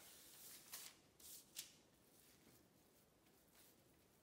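Faint rustling of pre-cut paper sheets being handled, a few soft crinkles in the first two seconds.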